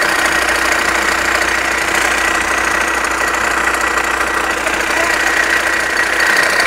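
Engine running steadily with a constant high-pitched whine over it: the strange engine noise being traced.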